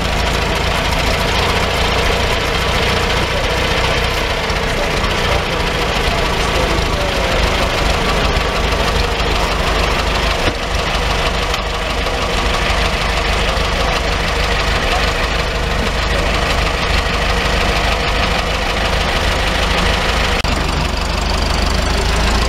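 Engine of an early brass-radiator FIAT truck, just started with the front hand crank, running steadily at idle. It gets a little louder about 20 seconds in as the truck moves off.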